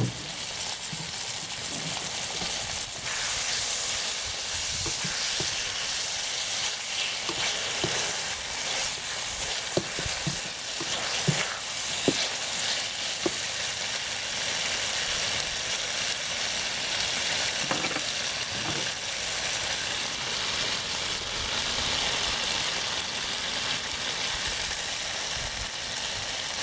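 Tomatoes, onions and ketchup sizzling in a wok, a steady frying hiss. A slotted spatula stirs the food, with scattered clicks against the pan through the middle stretch.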